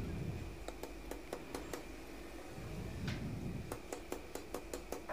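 Light clicks and taps at irregular spacing, with a few soft knocks, from small metal parts and tools being handled on a workbench. A faint steady hum runs underneath.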